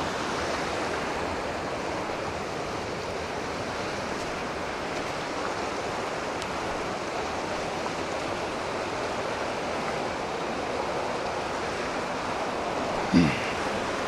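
Creek water rushing steadily down a rocky channel in a small cascade. Near the end a brief voice sound falling in pitch cuts in.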